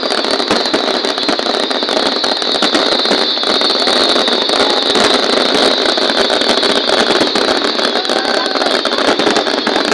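Fireworks crackling densely and without pause: a steady, loud rattle of many small pops with a hiss, and no single large bang standing out.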